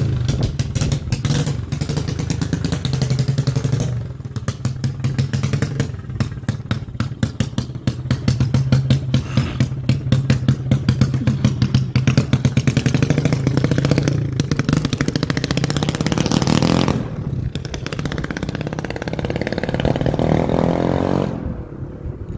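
An engine running with rapid, even firing pulses; it revs up, rising in pitch, about three quarters of the way through, then falls away near the end.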